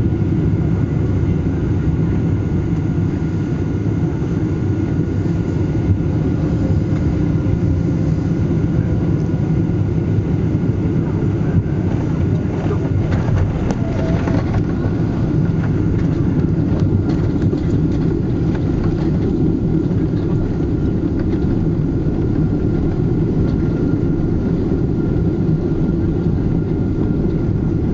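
Airliner cabin noise during landing: a steady, loud rumble of engines and airflow as the plane touches down and rolls along the runway. A few faint knocks come near the middle.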